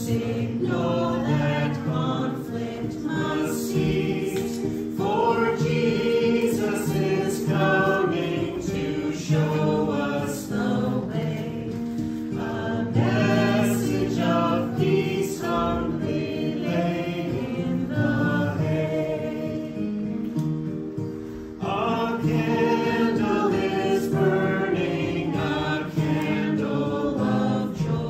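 Voices singing a hymn over held accompanying notes, with a short pause between phrases about three-quarters of the way through.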